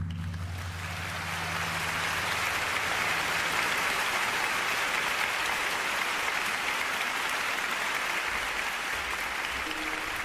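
Audience applauding at the end of a taiko drum piece, swelling over the first couple of seconds and then holding steady. Under it, the deep ring of the large taiko drums' final stroke dies away over the first few seconds.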